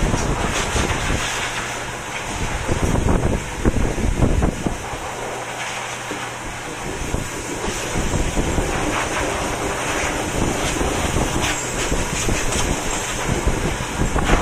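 Pet grooming dryer blowing air through its hose onto a cat's fur: a steady rushing hiss, with uneven low rumbles where the air stream buffets the microphone.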